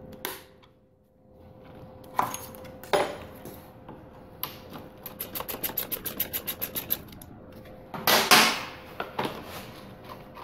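Workshop tool sounds: two separate knocks, then an even run of rapid clicks, about five a second for a couple of seconds, and a louder scraping clatter near the end.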